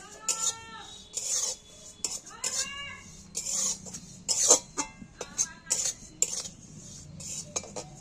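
Metal spatula scraping and stirring white sesame seeds around a dry aluminium kadai in quick, irregular strokes. The seeds are being dry-roasted over low heat.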